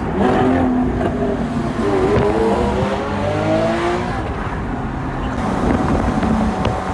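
Lamborghini Aventador SVJ's V12 engine accelerating: its note climbs in pitch for about two seconds from around two seconds in, then levels off.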